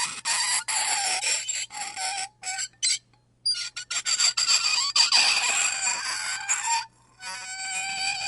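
Fork scraping across a plate in repeated strokes: a high-pitched squealing screech whose pitch wavers from stroke to stroke. It stops for a moment about three seconds in and again briefly near the end.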